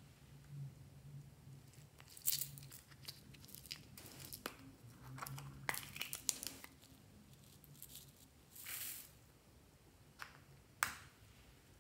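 Small plastic glitter pots being handled: their lids snap and click open and shut several times, with light crackling of the plastic, and a brief rustling hiss near the end as sequin glitter is shaken into the bowl.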